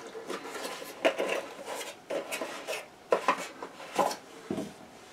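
A small cardboard box holding a drinking glass being opened and handled, with a series of short knocks, scrapes and rubs as the glass is slid out of it.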